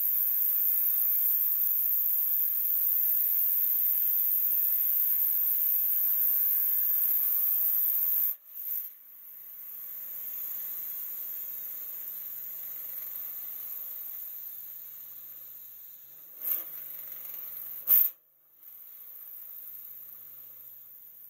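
Nissan Titan's VK56DE 5.6-litre V8 pulling hard through the gears on a quarter-mile drag pass, heard from under the truck by the rear axle. Its pitch climbs steadily, with an upshift about two and a half seconds in. About eight seconds in the throttle is lifted and the sound drops suddenly to a quieter drone that falls in pitch as the truck slows, with two brief loud knocks near the end.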